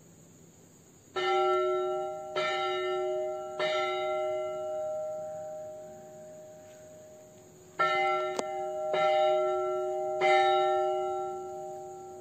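A large bell tolled in single strokes: three strokes about a second apart, a pause, then three more, each stroke ringing on and fading slowly.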